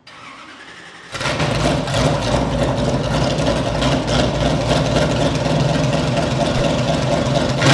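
Lotus Type 66's V8 race engine fires up about a second in and runs at a steady, loud idle.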